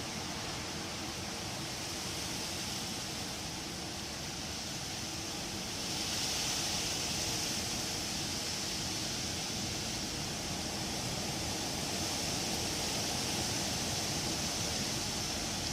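Wind blowing through trees, the leaves rustling in a steady hiss that swells in a stronger gust about six seconds in.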